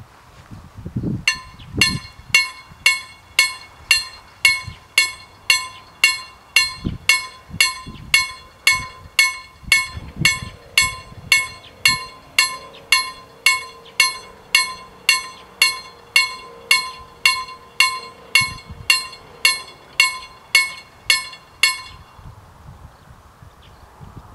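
Level-crossing warning bell striking about twice a second, each stroke ringing on. It starts about a second in and stops a couple of seconds before the end, once the half-barriers are down; a faint steady hum sits underneath for several seconds midway.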